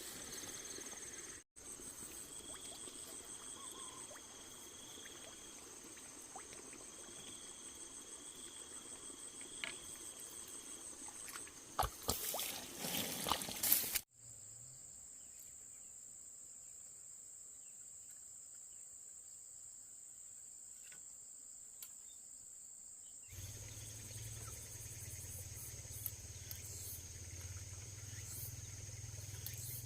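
Insects, crickets or similar, trilling steadily and high-pitched, with a short louder burst of noise about twelve seconds in.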